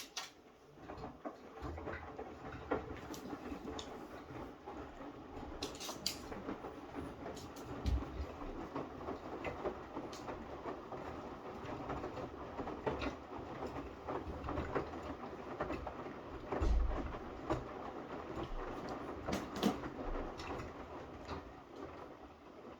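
Snowshoe kittens at play: a steady scrabbling and patter of paws scuffling about, with scattered sharp clicks and a few soft thumps.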